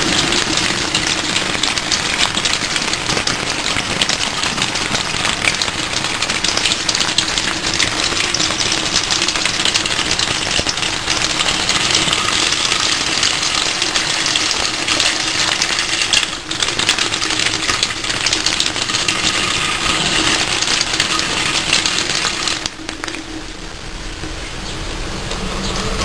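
Water pouring from a glass-disc waterfall tap into a stainless steel sink, a steady rushing splash. Near the end the flow drops sharply to a thinner stream.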